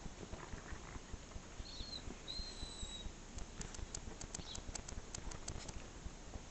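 Whippet puppies' paws and claws pattering and clicking on paving slabs as they scramble around, with a quick run of sharp clicks in the middle. A few short high-pitched peeps are heard about two seconds in.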